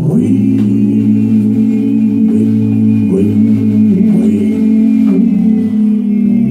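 Live band comes in loud and all at once on a sustained chord, with electric guitar and bass prominent. The chord is held for about six seconds, then shifts to a new one near the end.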